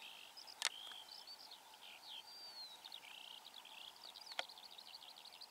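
Faint, continuous high chirping and trilling of small songbirds, with two sharp clicks, one just under a second in and one about four seconds in.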